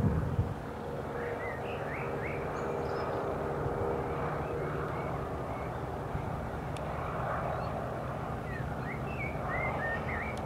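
A de Havilland Moth biplane's piston engine running steadily as the aircraft flies low past, with small birds chirping briefly about a second in and again near the end.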